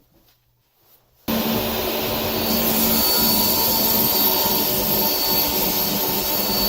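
A power tool's motor cuts in abruptly about a second in and then runs steadily with a constant whine.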